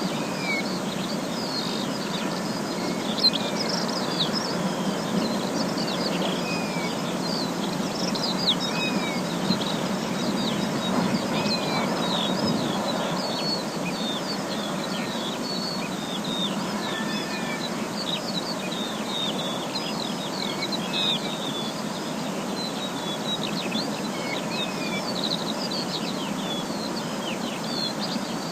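Forest ambience: many small birds chirping and calling all through, with quick falling notes overlapping one another, over a steady background rush.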